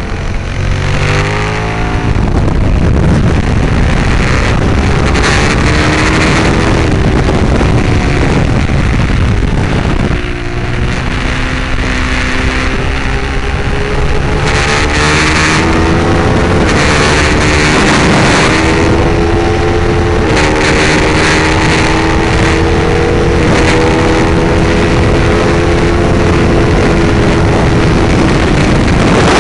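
Ducati 848's L-twin engine at race pace, heard onboard. It climbs in pitch through a run of upshifts. About ten seconds in the throttle is briefly closed, then it pulls hard again through more gears to near the end.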